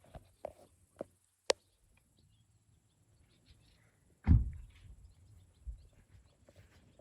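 A few light clicks and knocks, one of them sharp, then a single heavy thump about four seconds in, with faint scattered ticks between.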